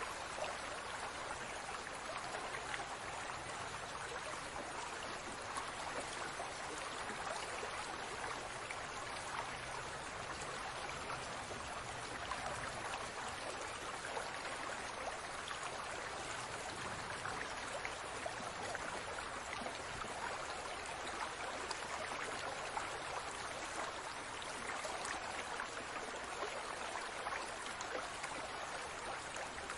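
Aquarium water bubbling and trickling steadily, a constant patter of small bubbles with no pauses.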